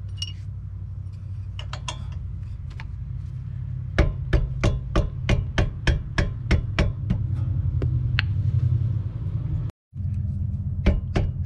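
Sharp metallic clicks from a wrench working a rear brake caliper bolt, about three a second for several seconds, over a steady low hum. The caliper slide pin is spinning along with the bolt, so the bolt isn't coming loose.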